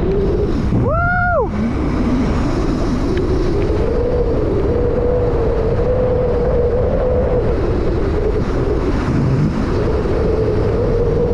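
Electric motorbike on the move, running on an Electro & Co. 5000 W kit motor with a 48 V battery: a steady motor whine drifting up and down with speed, under heavy wind buffeting on the microphone. A brief higher-pitched sound with a rise and fall comes about a second in.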